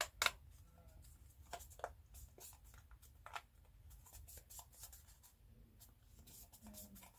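Faint scattered clicks and light rubbing of a small model part being handled and turned in the fingers, a dozen or so sharp ticks spread irregularly.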